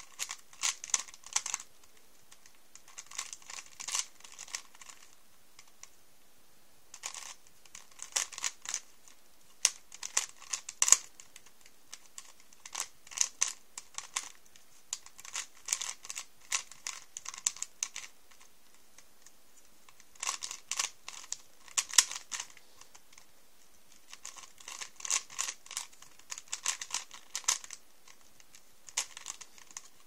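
Plastic layers of a Rubik's Cube 3x3 clicking and clacking as they are turned by hand, in quick runs of turns separated by short pauses of a second or two.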